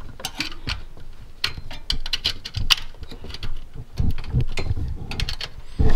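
Handling noise from an HDMI plug being pushed into a port at the back of a desktop computer: irregular clicks, taps and scraping of plastic and metal, with a louder knock near the end.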